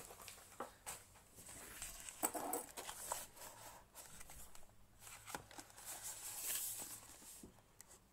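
Hands handling and turning over a cardboard product box: faint, irregular rustling and scraping of fingers on the card, with light taps and clicks.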